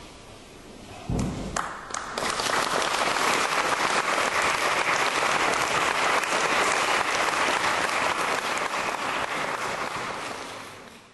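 Audience applauding as the music ends: a thump about a second in, then steady applause from about two seconds in that fades out near the end.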